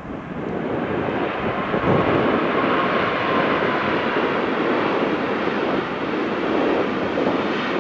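An airliner passing close on arrival, its engine noise swelling over the first two seconds, then holding loud and steady, with a faint whine that slides slightly down partway through.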